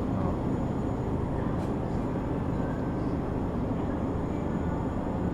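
Steady supermarket background noise: an even low rumble of the store's machinery and air, with no distinct events.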